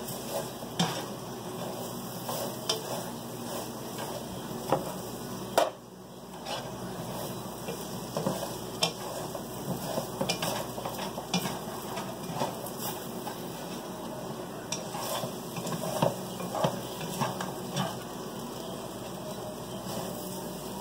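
Homemade potato fries sizzling in butter in a skillet, with a utensil clicking and scraping against the pan as they are stirred; a sharper knock comes about five and a half seconds in.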